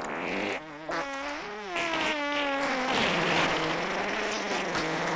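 A long, drawn-out fart sound played as a prank, wobbling in pitch, starting just under a second in.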